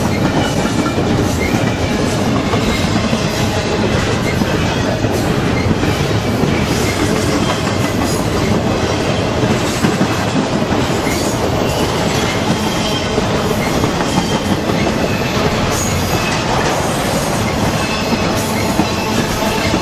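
Double-stack intermodal freight cars rolling past: steady clatter and rumble of steel wheels on the rails, with scattered short high squeaks from the wheels.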